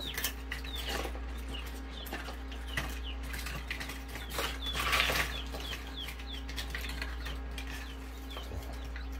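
Chicks peeping over and over, short falling chirps several times a second, over clicking and crackling of eggshell being picked apart by hand, loudest about five seconds in. A steady low hum lies underneath.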